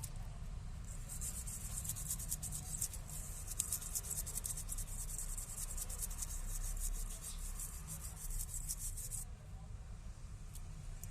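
Fast, scratchy rubbing made of many quick strokes, keeping up for about eight seconds and then stopping abruptly, over a low rumble.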